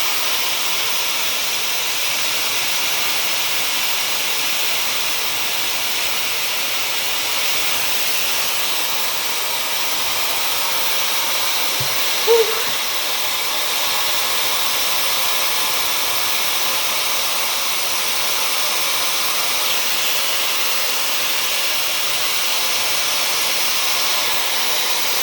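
Dyson hair dryer with a diffuser attached, running steadily on its highest speed setting with a steady airy rush of blown air. A brief short sound comes about twelve seconds in.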